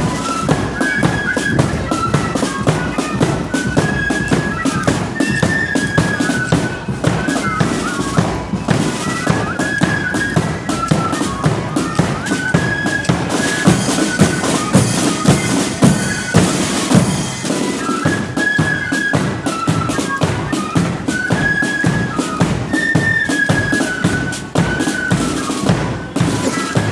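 Marching flute band playing a tune: flutes carry the melody over rapid snare-drum rolls and beats, a bass drum and cymbals, with a stretch of brighter cymbal wash in the middle.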